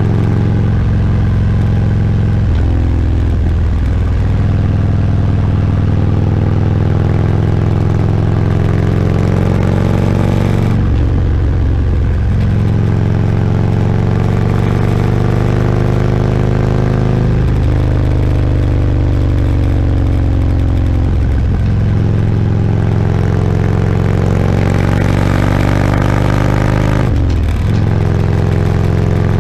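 Touring motorcycle's engine running under way at road speed, with wind rush. The engine note rises and falls with the throttle and dips briefly about five times.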